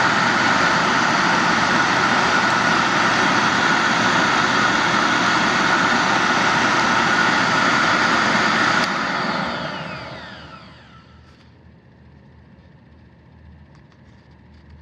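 AIIYME SH-168 pet grooming dryer's blower running steadily on low speed with the heat on, a constant rush of air. About nine seconds in it is switched off and winds down, its whine falling over a couple of seconds.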